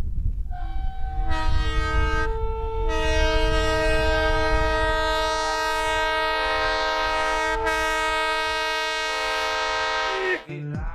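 Multi-chime train air horn sounding a chord over the low rumble of a passing train: two short blasts, then one long blast held for about seven seconds.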